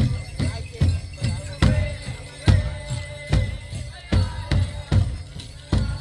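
A powwow drum group playing for an intertribal dance: a large drum struck in an even, heavy beat about two times a second, with voices singing over it and a light jingle of bells.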